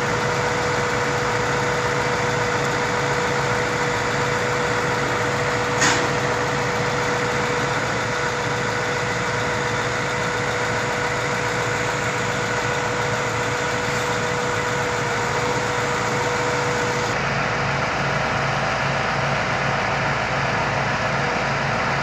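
Diesel engine of a Schwing S 43 SX truck-mounted concrete pump running steadily to drive the boom hydraulics while the boom is raised. A steady hum sits over the drone and stops about three-quarters of the way through. There is one short click about six seconds in.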